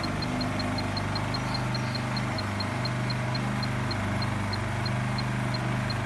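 Two Honda EU2000 inverter generators running steadily: a low engine hum that wavers slightly as the two units beat against each other. A faint, high ticking repeats about three to four times a second.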